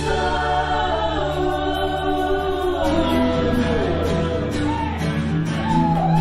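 Live band music: two women singing together over electric bass, electric and acoustic guitars and drums, with long held sung notes.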